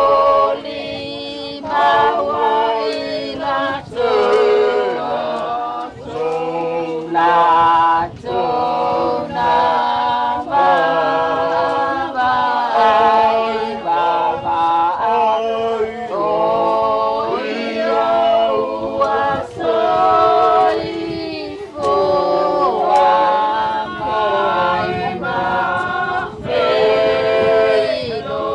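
A group of voices singing a hymn together without accompaniment, in long held notes with short breaks between lines.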